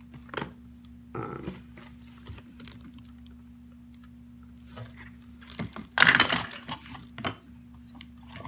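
Shrink-wrapped cardboard boxes handled on a table: scattered taps and rustles, with a louder rustling burst about six seconds in, over a steady low hum.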